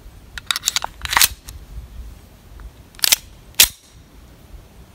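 Metallic clicks and clacks from a steel Tokarev TT-33 pistol being handled and its action worked: a quick run of small clicks, a louder clack about a second in, then two sharp clacks about half a second apart near three seconds.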